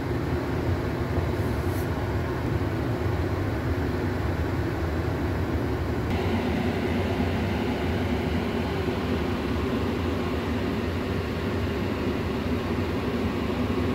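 A steady low rumbling noise, continuous and without speech.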